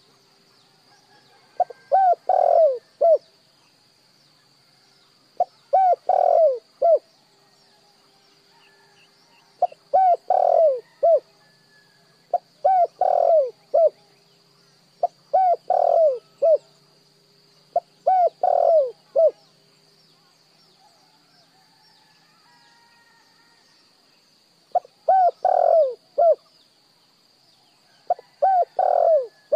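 Spotted dove cooing: a phrase of three to five quick, falling coos, given eight times every few seconds, with a longer pause about two-thirds through. A faint steady high-pitched whine runs underneath.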